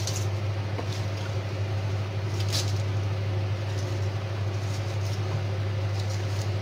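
Wooden spatula stirring chopped cabbage in a stainless steel pot, with a couple of brief scrapes against the pot, over a steady low hum.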